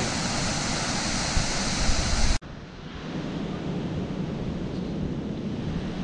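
Wind buffeting the microphone over the steady rush of a waterfall, cutting off abruptly about two and a half seconds in to a quieter, steadier rush with lighter wind noise.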